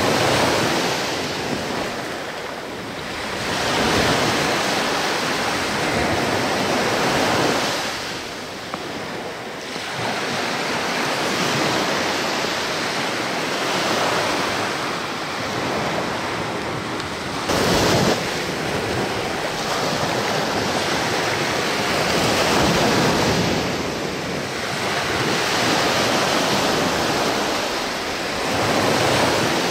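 Small sea waves washing in on the shore, swelling and fading every few seconds, with wind on the microphone. A brief sudden noise about 18 seconds in.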